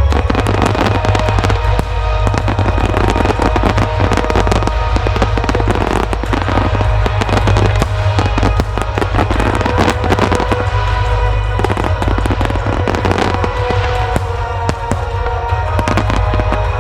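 A starmine fireworks finale: aerial shells exploding in rapid, continuous succession over loud music with sustained tones.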